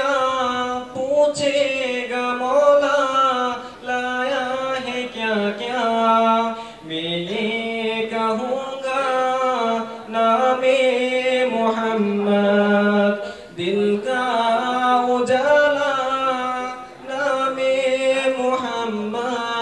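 A young man singing an Urdu ghazal solo and unaccompanied, in long held notes that bend and glide, with brief breaths between phrases every few seconds.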